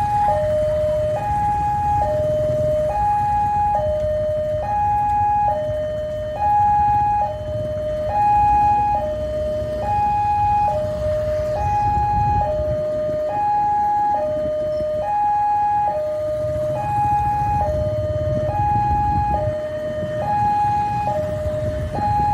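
Railway level-crossing warning bell sounding a repeating two-tone electronic alarm, alternating a higher and a lower tone with one pair about every second and a half, warning road traffic that a train is approaching. Idling and passing motorcycle engines rumble underneath.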